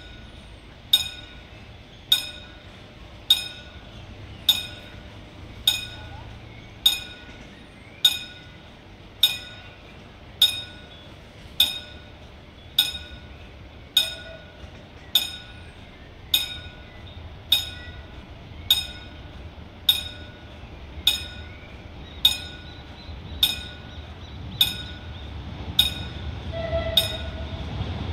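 Level-crossing warning bell ringing with slow, even strikes a little over a second apart while the barriers are down, signalling an approaching train. Near the end the low rumble of an approaching CAF-UTA light-rail tram grows under the bell.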